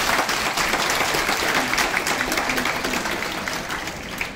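Audience applauding: many hands clapping in a dense patter that slowly fades toward the end.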